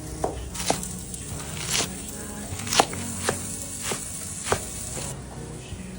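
About six sharp knocks at irregular intervals over a low steady hum, the loudest a little under three seconds in.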